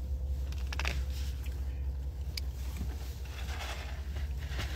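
Steady low rumble of a truck's engine and road noise heard inside the cab while driving, with a couple of faint clicks.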